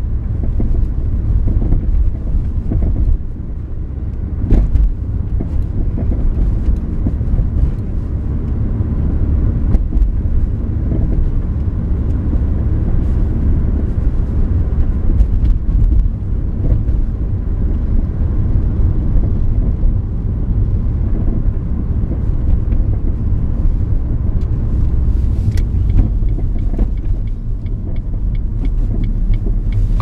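Inside the cabin of a 2000 Ford Focus driving over a bumpy road: a steady low road rumble with a few sharp knocks from the suspension. The owner blames the noise on worn sway-bar end links, which he says cured it once replaced.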